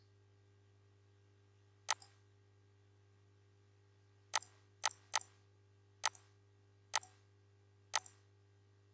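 Computer mouse clicking seven times at uneven intervals, some clicks followed by a lighter second tick, over a faint steady low hum.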